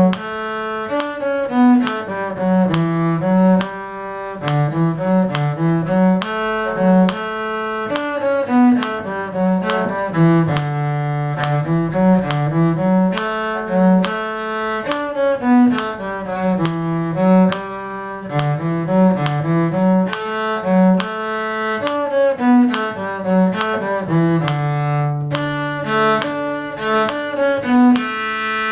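Bowed string instruments playing the melody of a short tune in parts, note by note in a steady beat, over a lower cello-range line.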